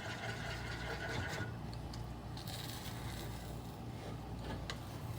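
A spoon scraping and stirring eggs around a non-stick pan as they scramble, over a low steady hum.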